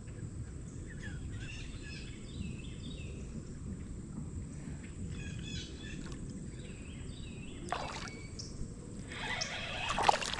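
Songbirds chirping in short repeated phrases over a steady low background rush, with a brief noisy rush near the end.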